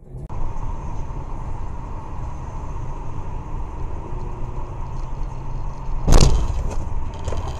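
Steady road and engine rumble inside a moving car, picked up by a dashcam. About six seconds in there is one loud thump, followed by a few lighter knocks.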